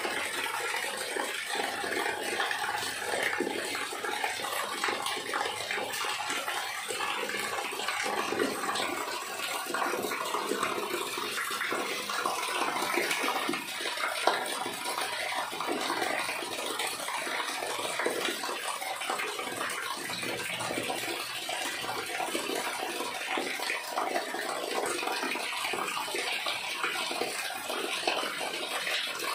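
Rainwater from a terrace pouring in a thin stream and splashing steadily into a concrete drain channel.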